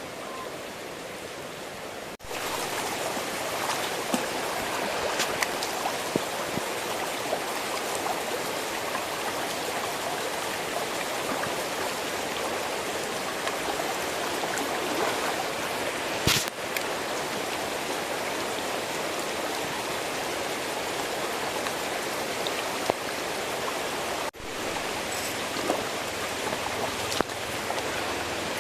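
Steady rush of water in a small stream, with one sharp click about halfway through. Two brief dropouts break it, one about two seconds in and one near the end.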